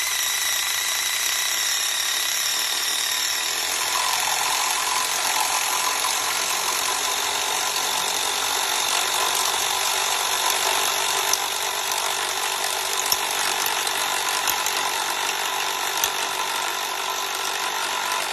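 Cordless impact driver running steadily under load as a Diablo step drill bit cuts through a steel pipe, with a few sharp clicks in the second half.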